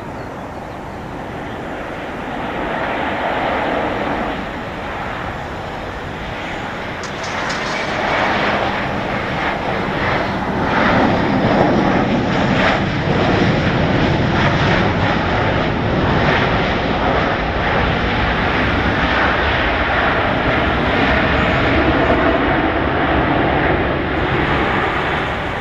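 Boeing 737-800 jet airliner's CFM56-7B turbofan engines running as it touches down and rolls out along the runway. The noise grows loud about eight seconds in and stays loud until it eases off near the end.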